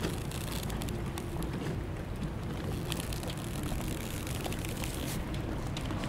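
Strong wind at a mooring of sailboats: a steady rumbling wind with waves lapping against the hulls, and many small clicks and taps from the boats' rigging scattered throughout.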